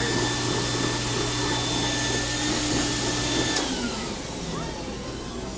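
Build-A-Bear stuffing machine blowing fibre stuffing through its nozzle into a plush toy: a steady blower noise with a whine. It cuts off about three and a half seconds in and winds down with a falling whine.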